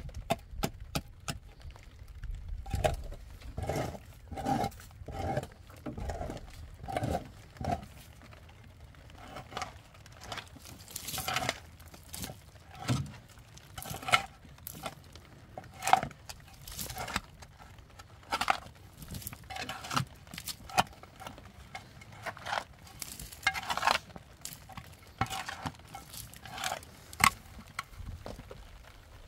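Irregular knocks and clinks of hard objects being handled, with a run of regular strokes about two a second between about three and eight seconds in.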